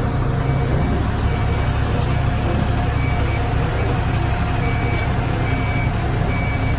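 Tadano GR300XL-1 rough-terrain crane's Cummins QSB5.9 turbo-diesel running with a heavy low drone, under a backup alarm beeping about once a second, with a short pause midway.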